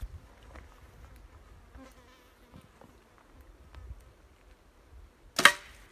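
A compound bow being shot at a grouse: one sharp, loud snap of the bowstring near the end.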